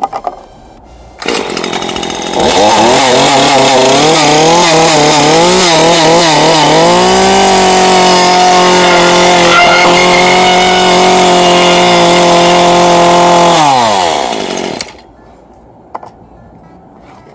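Stihl MS 150 small top-handle two-stroke chainsaw cutting into a box: it comes in about a second in and goes to full throttle a second later, its pitch wavering for several seconds, then holding steady at high revs, then falling as the throttle is released, and it stops about fifteen seconds in.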